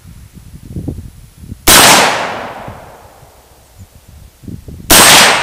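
Two rifle shots from an AR-15 firing 5.56×45 mm 60-grain full-metal-jacket reloads, about three seconds apart. Each is a sharp crack with a long fading echo.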